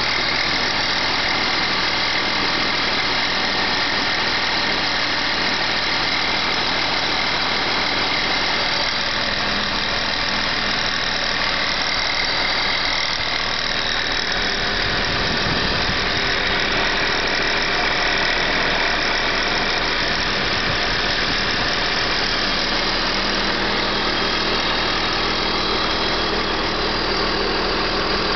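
BMW E39 engine idling steadily on a cold start, with a noise from the alternator area of the belt drive. The owner takes it for a knock from the hydraulic belt tensioner, having already replaced the idler pulley and the water pump.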